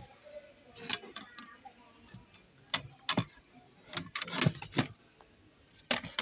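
Stacked serving trays clacking against one another as they are flipped through by hand: a string of sharp knocks, bunched most thickly around four to five seconds in.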